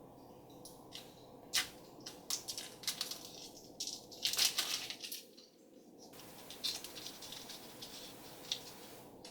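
Toy packaging being handled and opened by hand: a run of clicks and crinkling, busiest about four to five seconds in.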